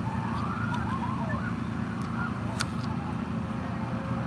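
Outdoor ambience: a steady low rumble with faint, short calls that rise and fall in pitch, and a few sharp clicks.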